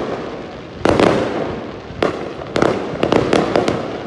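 Fireworks bursting: a sharp bang about a second in, then more bangs in quick succession near the end, each followed by a fading rumble.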